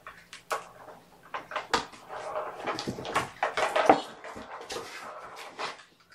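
Kittens playing: a run of irregular knocks, scratches and rustles from small paws scrambling on a carpeted cat tree and batting at a plastic track toy.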